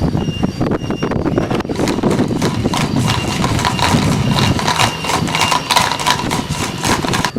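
A homemade door alarm going off: a small DC gear motor clattering rapidly, with a 3 V buzzer's high tone coming and going over it.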